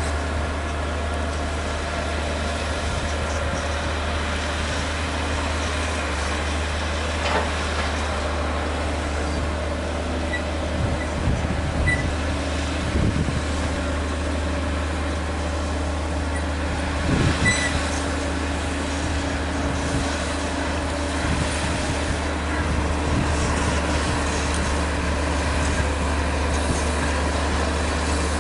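Bulldozer diesel engine running steadily with a deep, constant low rumble, with a few brief clanks and short squeaks about a third of the way in and past the middle.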